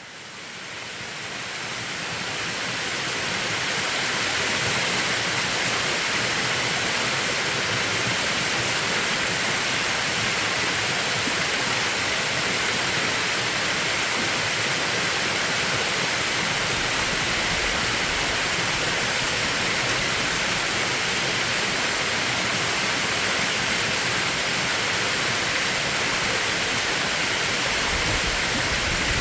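Mountain valley stream rushing over rocks in a steady, even hiss of water, fading in over the first few seconds.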